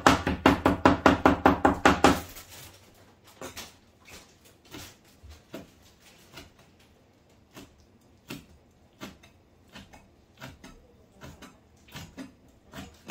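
Cleaver chopping on a cutting board. A fast run of loud knocks, about six a second, stops about two seconds in. Slower, lighter single knocks follow every second or so.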